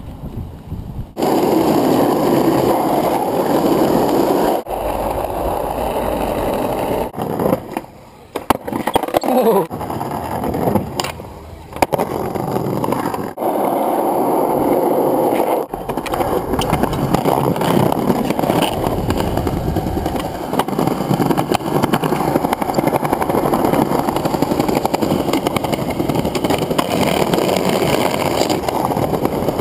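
Skateboard wheels rolling over asphalt and paving stones, a steady rumble, broken by several sudden changes and knocks in the first half.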